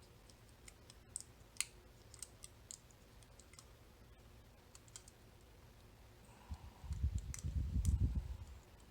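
Small sharp metallic clicks and ticks of hand tools working at the parts of a disassembled Mul-T-Lock Interactive cam lock, then a louder low rumbling and knocking of handling for about two seconds near the end.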